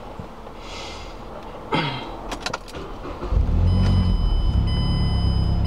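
A car being started: clicks as the ignition is turned, then the engine catches about three seconds in and settles into a loud, steady low idle. A steady high electronic tone, like a dashboard chime, comes on just after.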